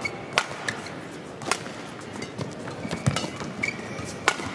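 Badminton rally: sharp racket-on-shuttlecock hits about a second apart, with short squeaks of court shoes and footfalls on the court mat, over a steady murmur from the arena crowd.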